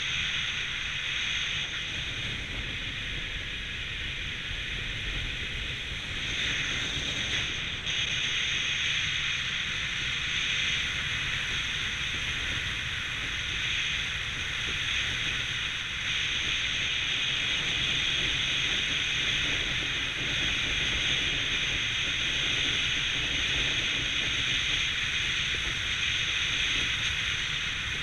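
Steady rush of air over the microphone while descending under a gliding parachute canopy, a hissing wind noise that grows slightly louder about halfway through.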